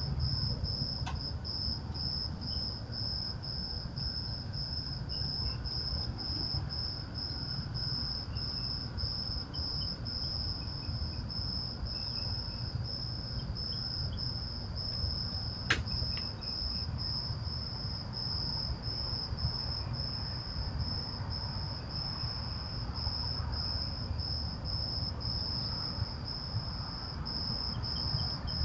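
Crickets chirping in a steady, evenly pulsing high trill, with one sharp click about halfway through.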